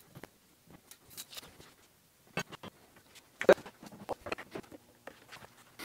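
Scattered clicks and knocks of hand tools being handled and set down on a steel welding table, the loudest a single sharp knock about three and a half seconds in, followed by a few lighter taps.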